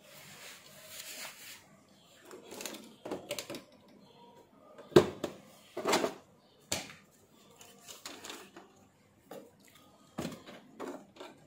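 Irregular clicks, taps and rustles of hands handling cables, connectors and the circuit board on a TV's metal chassis, with two louder knocks about five and six seconds in.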